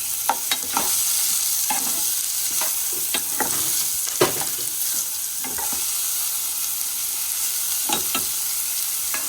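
Chopped onion, ginger and garlic sizzling in hot coconut oil with cumin seeds while a spoon stirs them, clicking and scraping against the pan. The loudest knock comes about four seconds in.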